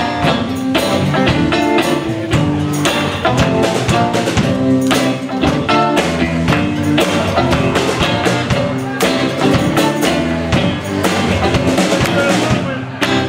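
Live band playing an upbeat song, with a drum kit keeping a steady beat under guitar.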